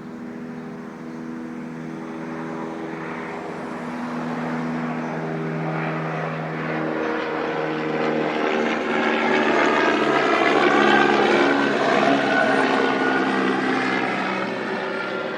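Propeller airplane flying past: a steady engine drone grows louder, with a rising rush and sweeping whoosh that peaks about eleven seconds in, then starts to fade.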